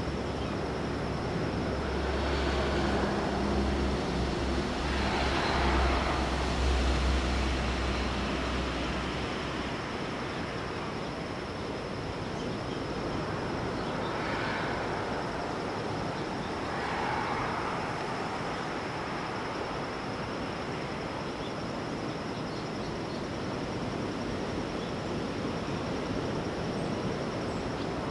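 Ocean surf: waves breaking and washing in slow swells of hiss a few times, with a low rumble through the first third and a faint steady high-pitched tone throughout.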